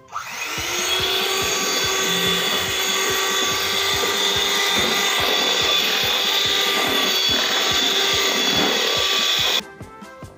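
Electric hand mixer starting up, running steadily with its wire beaters whipping frosting in a stainless steel bowl, then switching off near the end.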